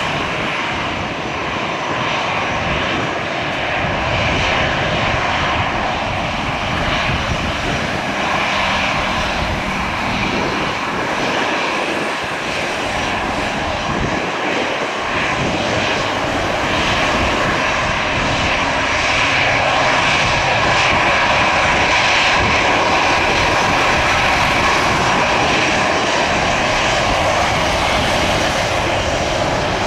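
Airbus A320's twin jet engines running at taxi power while the airliner rolls slowly and turns onto the runway: a steady whine over a low rumble, growing a little louder in the second half.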